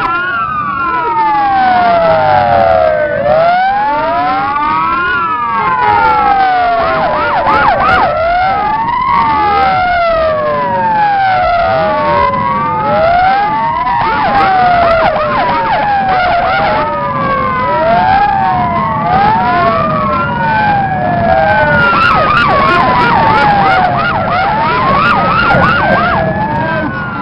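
Several police motorcycle sirens wailing at once, each slowly falling and rising in pitch, out of step so the wails cross over one another, with the motorcycles' engines running underneath.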